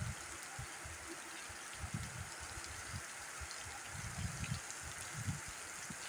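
Steady rain falling on bare ground, an even hiss, with irregular low thumps every second or so.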